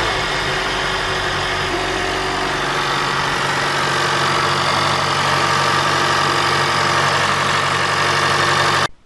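Honda Fit GK5's 1.5-litre four-cylinder engine idling steadily just after being started a second time from cold; on this repeat start the owner says the cold-start knock no longer appears.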